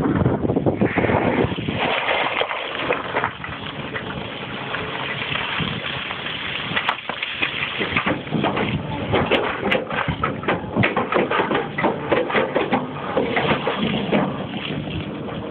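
Komatsu PC340LC diesel excavator working, its engine running under a steady din of rattling and knocking that grows denser about halfway through.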